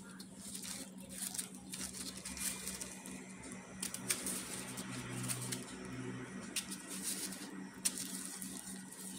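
Disposable plastic gloves crinkling and rustling as hands pull the hulls off strawberries, with many small irregular clicks and crackles. A steady low hum runs underneath.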